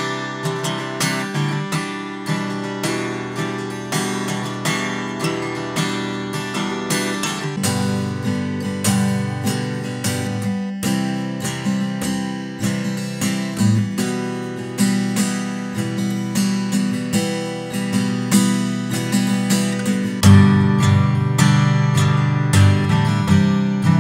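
Steel-string dreadnought acoustic guitars strummed in turn, one chord stroke after another. First comes a solid-cedar-top Crafter D-7N with its soundhole plugged, then a laminate-top Ibanez PF15ECE with an open soundhole. About 20 seconds in the strumming turns louder and fuller in the bass as the unplugged Crafter D-7N takes over.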